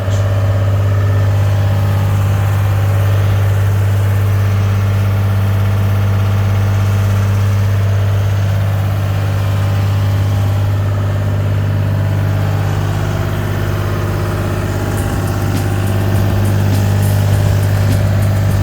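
Deutz diesel engine of a Gehl 4640 skid steer running steadily at a constant speed with a strong low hum.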